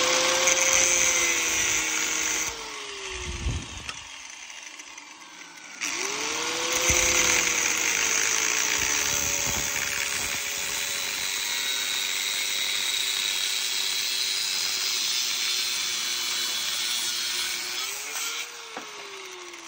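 Angle grinder cutting the threaded end off a steel pipe nipple: the motor runs with a hissing cut and winds down about three seconds in, then spins up again about six seconds in and cuts steadily before winding down near the end.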